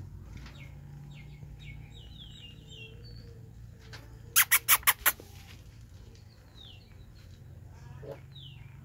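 Small birds chirping and twittering in the background. About four and a half seconds in there is a quick run of five loud, sharp clicks, the loudest sound here.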